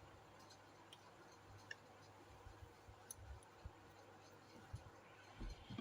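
Near silence with a few faint clicks and soft taps as small plastic toy kitchen pieces are handled.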